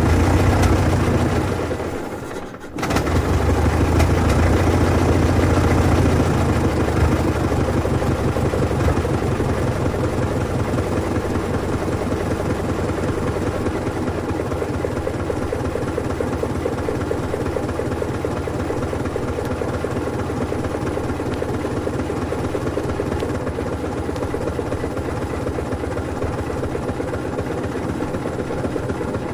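Ford Model T four-cylinder engine running at a steady, rapid putter. It dies away briefly about two and a half seconds in, picks up again at once a little louder, then runs evenly for the rest.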